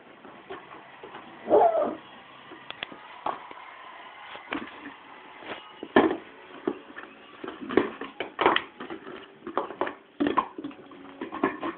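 Lhasa Apso puppy giving one short whimpering yip about a second and a half in, amid irregular knocks and scuffling as it plays.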